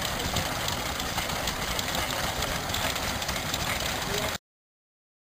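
Old stationary engines running, with voices in the background. The sound cuts off abruptly to silence about four and a half seconds in.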